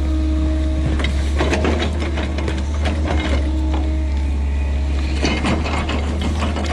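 Kobelco SK160 excavator's diesel engine running under load, a steady hum. Clusters of crackling and knocking, about one and a half seconds in and again about five seconds in, come from the stump and earth being worked.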